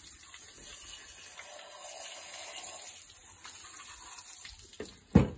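Garden hose spray nozzle jetting water into and over a gutted chicken carcass to rinse it out, a steady hiss. A single loud knock near the end.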